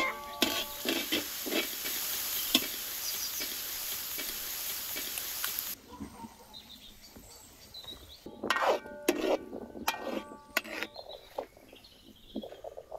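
Food sizzling in a pan with small scrapes and clicks, which stops abruptly about six seconds in. After that it is quieter, with a handful of sharp clinks, some ringing briefly, like a spoon tapping bowls and a metal pan.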